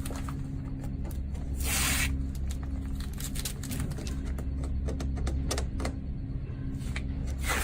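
Strips of masking tape being pulled off the surface of synthetic roofing underlayment: a short rasping rip about two seconds in and another right at the end, with small crinkly handling clicks in between over a steady low hum.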